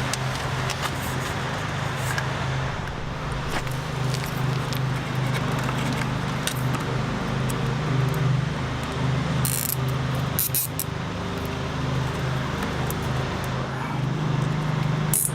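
A steady mechanical hum runs throughout. Light metallic clinks of small hardware being handled come a few times, clustered about two-thirds of the way in and again at the end.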